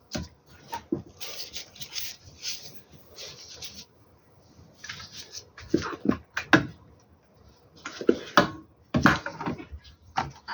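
Irregular clicks, knocks and scraping of hand tools and metal and plastic parts as an inverter is being taken apart and its circuit board worked loose.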